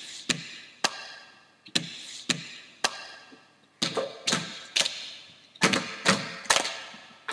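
Rhythmic hand slaps and claps tapping out a beat, in groups of three about every two seconds and coming faster near the end, each hit with a short ringing echo.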